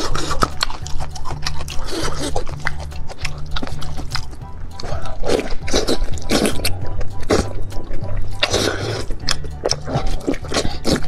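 Wet slurping, sucking and chewing on soft offal in red chili sauce, with many sharp smacking clicks, over background music with a repeating bass line.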